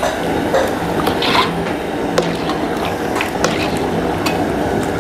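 Metal ladle stirring a thick beef gravy in a large aluminium pot, with irregular scrapes and knocks against the pot, over the steady roar of an LPG gas burner.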